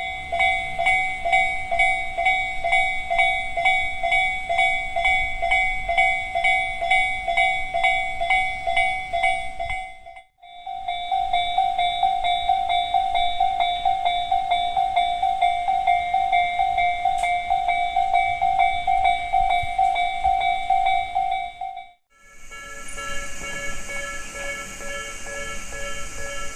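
Japanese railway level crossing warning bells ringing, a fast steady repeating ding. Three different crossings follow one another, each with its own pitch. The last comes in about 22 seconds in with a lower, different set of tones over a hiss.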